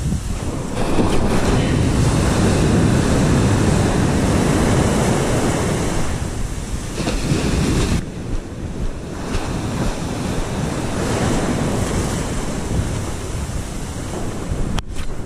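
Ocean surf breaking and washing around the shallows, with wind rumbling on the microphone; the wash eases briefly about eight seconds in, then builds again.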